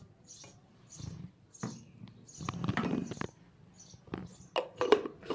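Water poured from a glass into a plastic grinder jar holding chopped herbs and chillies, a short splashing rush about two and a half seconds in. It is followed near the end by several sharp plastic clicks and knocks as the jar and its lid are handled.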